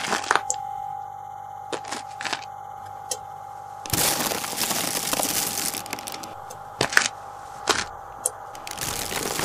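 Scattered sharp cracks and knocks over a steady high tone, with a loud rushing noise about four seconds in that lasts around two seconds and another shorter one near the end: added horror sound effects.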